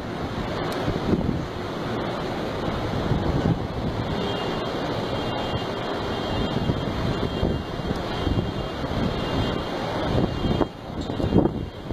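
Steady rush of strong storm wind and breaking surf as a storm surge washes waves over the seafront, with wind buffeting the microphone; it dips briefly near the end.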